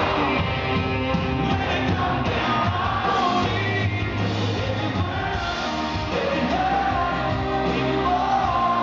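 Live country-rock band playing, with a male lead singer singing over acoustic guitar and drums.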